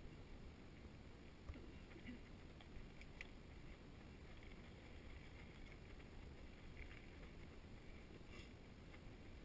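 Near silence: a faint, steady low rumble of a bicycle rolling along a tarmac lane, with a few faint clicks.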